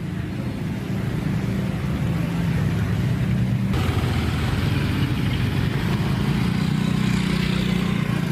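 Motor vehicle engines running, with steady road-traffic noise; the sound changes abruptly partway through, as at a cut between two shots.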